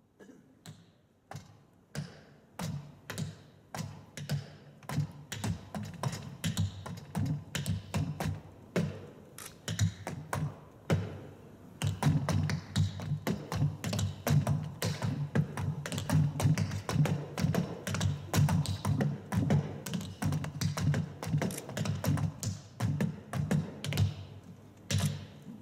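Tap shoes striking a wooden tap board in a hoofing-style tap routine, with sharp metal taps over low thuds. It starts with a few spaced taps and builds to dense, fast, louder rhythms about halfway through.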